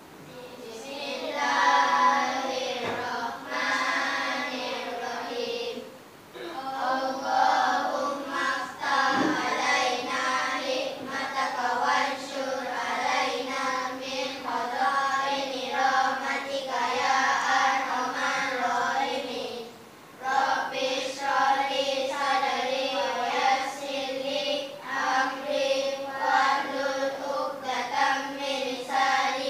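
A group of young children singing together in unison, in long held phrases that break off briefly about six and twenty seconds in.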